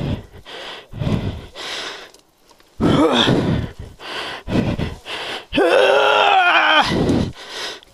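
A man panting hard with effort, letting out a short strained groan about three seconds in and a longer one near the end.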